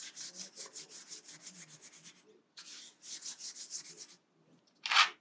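A stubby paintbrush scrubbing back and forth on paper: quick scratchy rubbing strokes, about five a second, with two short pauses and a louder rub near the end.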